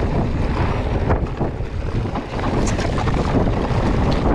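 Mountain bike riding over a rocky trail: tyres rumbling and the bike knocking and rattling over rocks, with wind buffeting the microphone.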